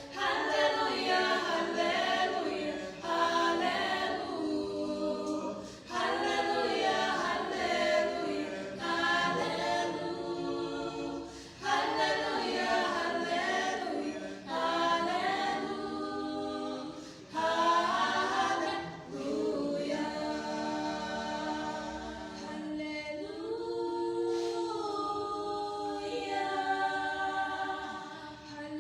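A choir singing a hymn of praise a cappella, several voices together in phrases of a few seconds with short breaths between them.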